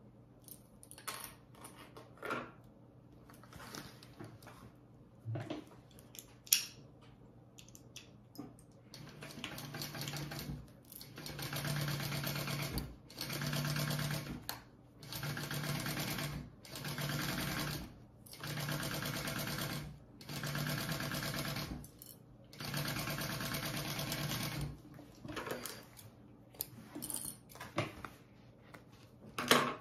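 Kingmax GC0302 industrial sewing machine stitching a seam in about eight stop-start runs of a second or two each, with brief pauses as the work is turned along a curved edge. Light handling clicks come before the sewing starts, and a few scissor snips come near the end.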